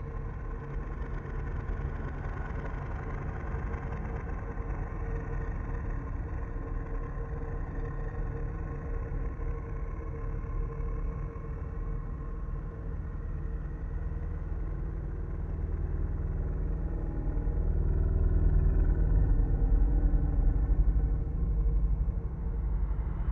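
Dark ambient drone: a deep, steady rumble with a faint held tone above it, swelling louder about two-thirds of the way in.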